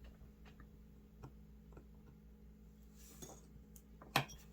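Faint, scattered ticks of a precision screwdriver bit working a tiny Phillips screw inside an iPhone XR, with one sharper click about four seconds in. A steady low electrical hum runs underneath.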